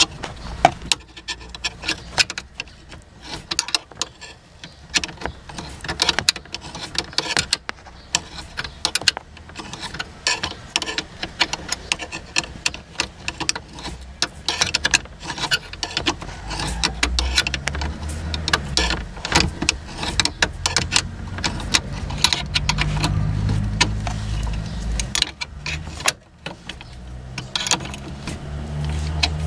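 Steel combination spanner clinking and scraping on bolt heads and a metal mounting bracket: a run of irregular sharp metallic clicks. About halfway through, a low hum joins in underneath.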